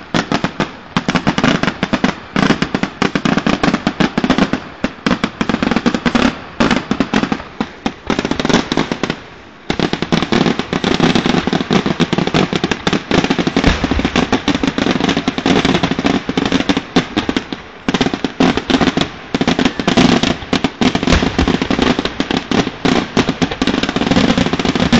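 Fireworks display: aerial shells bursting in dense, rapid volleys of bangs and crackles, with a brief lull about nine seconds in and a shorter one near eighteen seconds.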